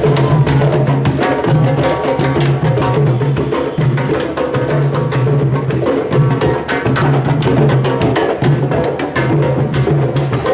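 A marching drum troupe playing large barrel-shaped hand drums in a fast, steady rhythm, with dense overlapping strikes.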